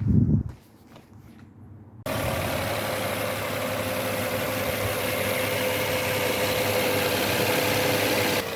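2010 Nissan Murano's V6 engine idling steadily with a steady whine over it, coming in abruptly about two seconds in.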